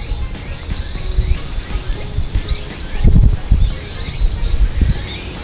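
Steady high-pitched chorus of insects, with low wind rumble on the microphone that swells strongest about three seconds in.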